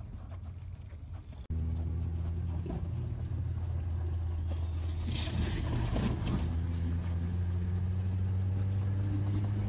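Steady low hum of a car engine and road noise heard from inside a moving car. It jumps abruptly louder about one and a half seconds in, and a rush of noise swells and fades around the middle.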